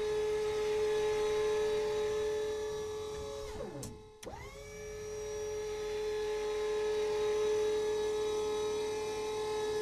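Electric motor whine of a missile turret traversing, as a sound effect: a steady whine that winds down and stops about four seconds in, then spins back up and runs steadily again.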